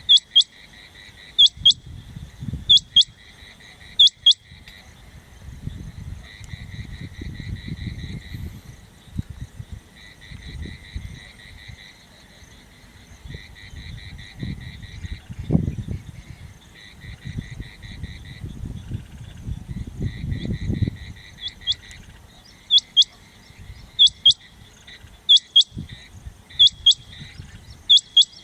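Rain quail calling: sharp, rising, whistled notes in pairs, repeated about every second and a half. The calls stop for the middle stretch and resume near the end. Through the gap a buzzy pulsing trill and a low rumbling noise continue.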